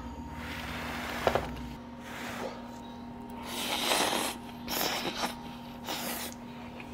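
A person eating close to the microphone: several short, noisy mouth and utensil sounds over a steady background hum.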